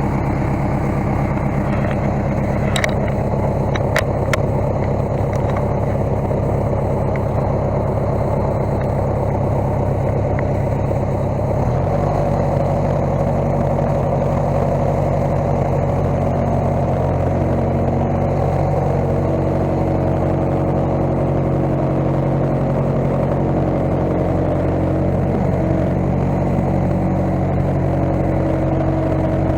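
Case skid steer's engine running steadily, with a few light clicks about three to four seconds in. About twelve seconds in its note shifts abruptly and settles at a different steady speed.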